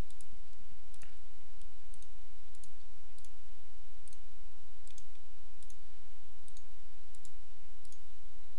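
Computer mouse clicking: a dozen or more short, paired ticks of button press and release at an uneven pace, over a steady low electrical hum.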